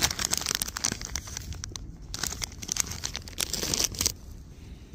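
Plastic soft-lure packet crinkling and rustling as it is handled and opened to take out a silicone curly-tail grub; the crackling stops about four seconds in.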